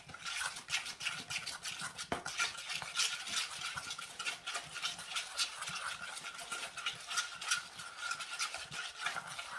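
Metal utensil stirring a thick cherry jam and brown sugar glaze in a stainless steel bowl: quick, repeated scraping and clinking strokes against the bowl, with a faint ringing from the metal bowl.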